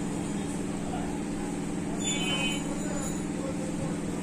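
Steady low mechanical hum, with a brief high tone about two seconds in.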